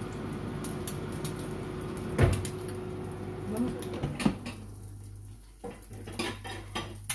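Moulinex Easy Fry Classic air fryer running with a steady hum, with a sharp knock about two seconds in. The hum cuts off a little under four seconds in as the basket drawer is pulled out, followed by clunks and clicks from the drawer and basket.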